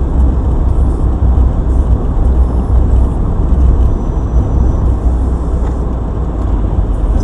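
Steady, loud low rumble of a moving car heard from inside the cabin through a dashcam's microphone: engine and tyre noise while driving.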